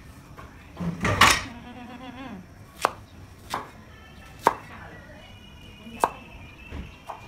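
A cleaver chopping onion on a round chopping board: a louder, longer clatter about a second in, then five sharp single knocks roughly a second apart.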